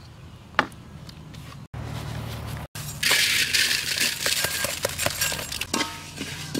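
Unhusked rice grains poured into a metal wok about three seconds in, a loud dense rattling hiss, followed by a metal spatula scraping and stirring the grains as they dry-roast over the fire. Before that, quieter handling with one sharp click.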